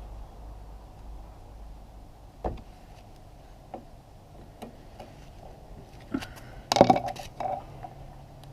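Scattered metallic clinks and knocks of hand tools and small metal parts being handled, with a louder clatter about six to seven seconds in.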